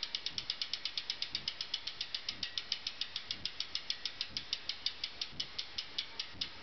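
PMP bicycle hub freewheel ticking as the wheel coasts: a steady train of sharp pawl clicks, about eight a second, slowing slightly near the end.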